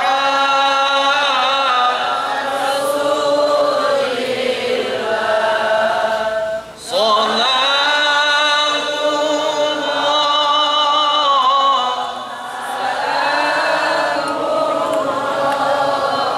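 A solo man's voice chanting Arabic devotional verses through a microphone, in long melismatic phrases that bend up and down, with a brief breath pause about seven seconds in.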